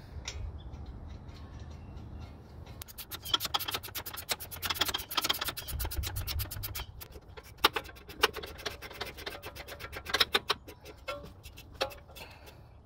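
Ratcheting wrench clicking rapidly for several seconds as a bolt is run in on the engine, then scattered metal clicks and taps from the tools and fittings.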